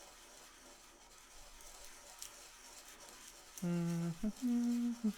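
Faint rubbing and handling noise. About three and a half seconds in, a voice makes two drawn-out hums at level pitch, the second a little higher, like a hesitant 'hmm', and starts a third near the end.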